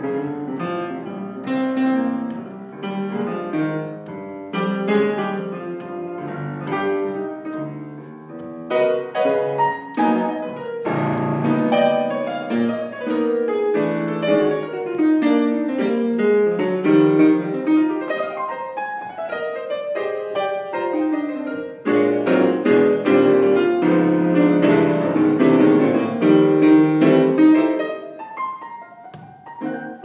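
Piano played as a performance piece: a flowing melody over chords, with falling runs in the middle, softening near the end.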